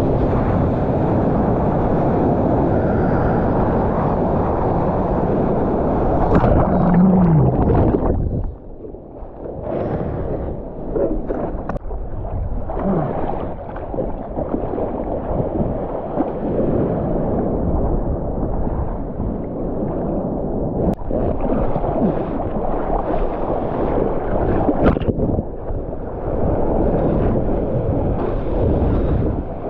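Surf water rushing and splashing around a GoPro in its housing, with wind buffeting the microphone. About eight seconds in the sound suddenly drops and turns dull, then comes back choppier.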